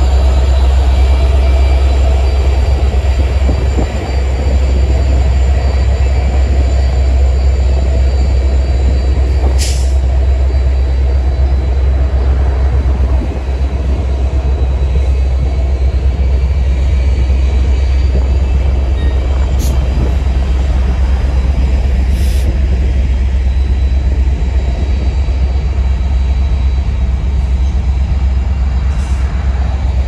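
Norfolk Southern freight train rolling along: a steady, loud rumble of locomotive and cars on the track, with a few brief high hisses.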